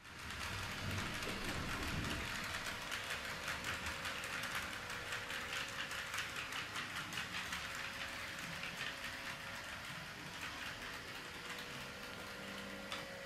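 Model freight train rolling past, its wheels clicking fast and evenly over the rail joints and turnout, with a steady faint hum underneath.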